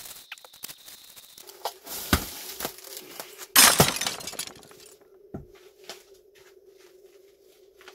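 Pink Depression glass dessert plates dropped, one of them breaking: a knock about two seconds in, then a loud crash of glass about a second and a half later.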